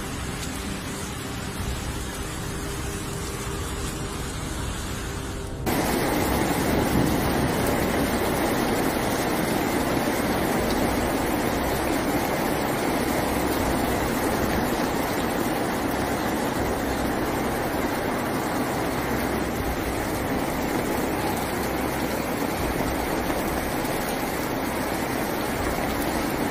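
Steady rushing noise of a storm: first floodwater in spate, then, after a sudden louder change about five and a half seconds in, a heavy downpour pelting a street.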